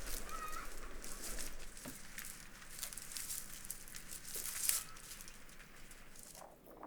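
Thin sticks rustling, crackling and clicking against each other as they are worked by hand into a woven basket, with a short squeak about half a second in.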